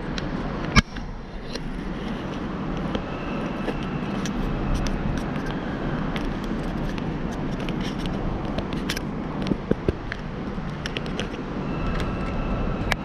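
Riding noise from a Voltron Ezigo 20-inch folding e-bike: a steady road and wind rumble with frequent small rattles and ticks, and one sharp knock about a second in.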